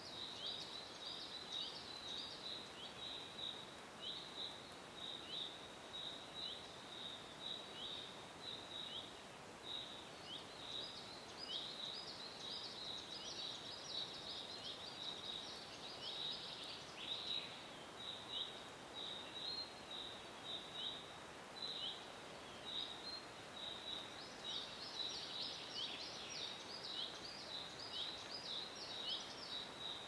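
Forest ambience of birds chirping: short, high calls repeat about twice a second throughout, thickening as several birds overlap now and then. A faint steady hiss of background noise lies beneath.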